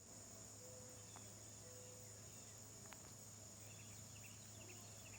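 Faint, steady high-pitched chorus of insects such as crickets.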